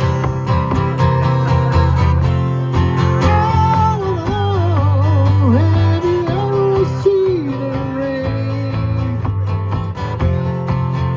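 Gibson jumbo acoustic guitar strummed in a steady rhythm. From about three seconds in to about nine seconds, a wavering melody line with slides plays over it.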